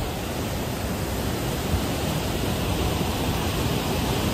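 The Beas River in high flood: a silt-laden torrent rushing past close by, a steady, unbroken roar of water.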